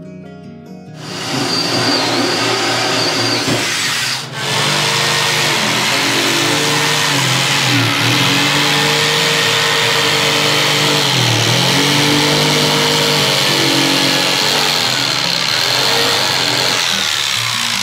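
Corded SKIL jigsaw running and cutting a round hole through the wooden bottom panel of a vanity cabinet, its motor pitch wavering as the blade loads and unloads. It starts about a second in and stops briefly about four seconds in before cutting on.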